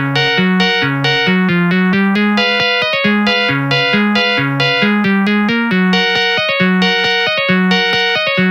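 Samsung SGH-T200 polyphonic ringtone played back on the MCP-MA7 synth: a fast run of short melody notes over a bass line that steps back and forth between two low notes.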